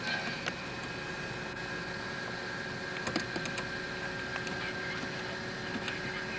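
Small clicks of a light aircraft's cockpit radio knobs and frequency-swap button being worked, over a steady hum with faint thin whining tones from the powered-up panel; the engine is not yet running.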